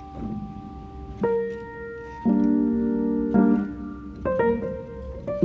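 Background music: slow piano chords, a new chord struck about once a second.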